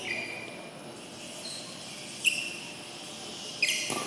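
Sports shoes squeaking on the badminton court floor: a few short, high-pitched squeaks as players shift their feet, with a sharp knock near the end.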